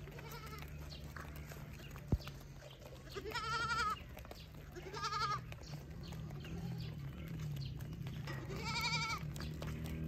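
Beetal goats bleating: three wavering bleats, about three, five and nine seconds in, the first the longest. A single sharp click about two seconds in.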